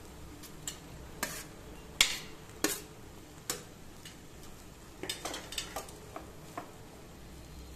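A spatula stirring cooked rice into brinjal masala in a non-stick kadai, with scattered scrapes and knocks of utensils against the pan. The loudest knock comes about two seconds in, and a quick run of clicks follows near the end.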